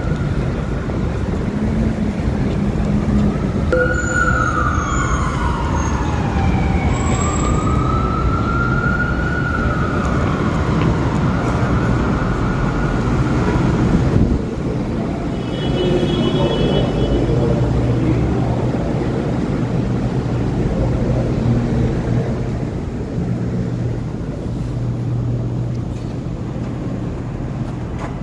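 City street traffic noise with an emergency vehicle siren wailing about four seconds in, sweeping down and then back up in pitch over several seconds. About halfway through it gives way to a steadier background with a low hum.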